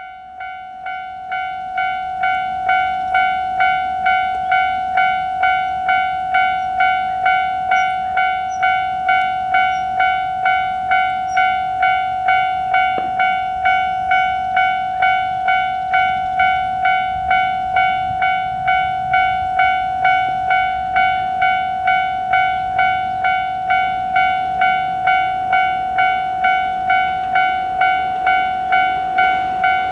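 Japanese railroad crossing warning alarm ringing its repeated "kan-kan" tone in an even rhythm, starting up and growing louder over the first couple of seconds.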